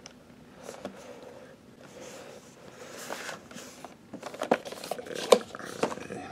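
Cardboard action-figure box with a clear plastic window being handled: soft rubbing and rustling, then a quick run of sharp clicks and knocks about four to six seconds in as the box is laid down on a table.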